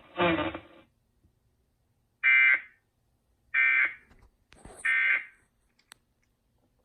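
Emergency Alert System end-of-message data tones: three short, shrill digital screeches a little over a second apart, the signal that closes a broadcast child abduction (Amber) alert.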